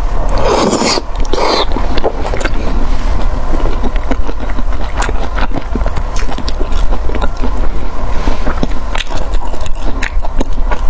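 Close-miked eating: chewing with many small wet clicks, and two brief louder rushing noises about a second in, over a steady low rumble.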